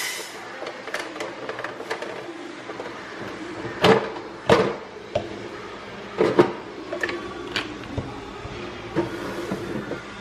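Clicks and knocks of a plastic carbonating bottle being taken out of a countertop soda maker and handled on the counter, with two louder knocks about four seconds in.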